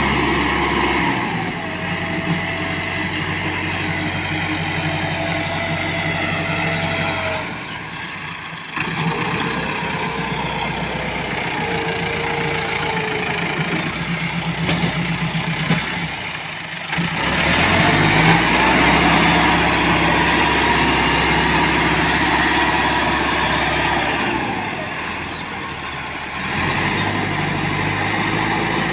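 Massey Ferguson 385 tractor's four-cylinder diesel engine running hard while pulling a heavily loaded brick trailer through soft sand. The revs sag three times, about 8, 17 and 25 seconds in, and pick up again each time.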